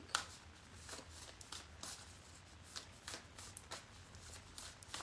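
A deck of tarot cards being shuffled by hand: a run of short, soft card snaps at uneven spacing, about two or three a second.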